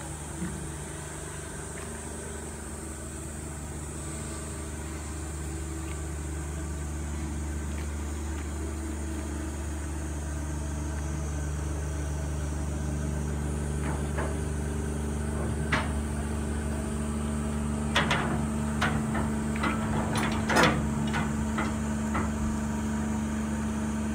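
Railway turntable carrying a C12 steam tank locomotive being pushed round by hand: a steady low rumble that slowly grows louder, with a run of sharp metallic knocks and clanks in the second half.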